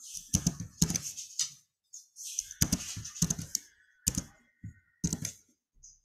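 Typing on a computer keyboard: keystrokes in irregular clusters with short pauses between them.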